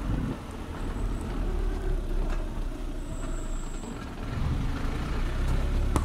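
Car driving slowly along a rough forest dirt track, heard from inside the car: a steady low rumble of engine and tyres that grows louder about four seconds in, with a single knock about two seconds in.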